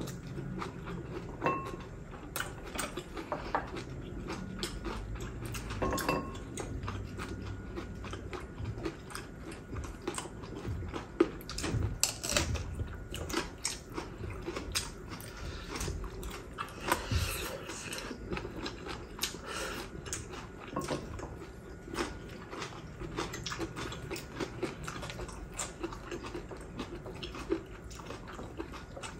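Close-up mukbang eating sounds: people chewing and biting food, with many irregular wet smacks and sharp little clicks.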